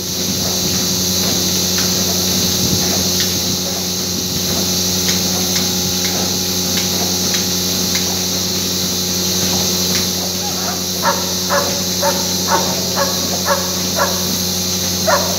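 Gas hissing steadily out through a metal trocar tube from a bloated cow's rumen. From about ten seconds in there is a quick run of short, sharp yelps, about two a second.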